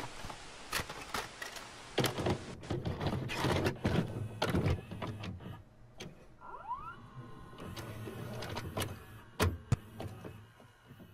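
A VHS video recorder's tape mechanism loading a cassette: a run of clicks and clunks with motor whirring, and a short rising whir partway through as the tape starts to play.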